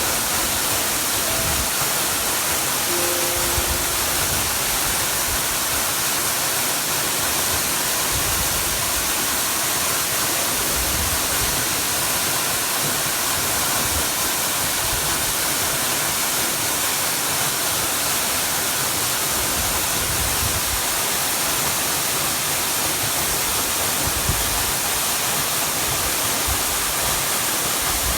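Hossawa Falls waterfall pouring: a steady, even rush of falling water.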